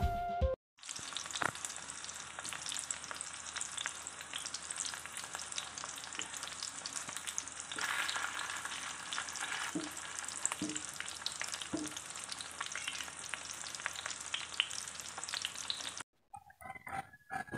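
Hot dogs sizzling and crackling as they fry in hot oil in a frying pan. The sizzling starts just under a second in and cuts off suddenly near the end.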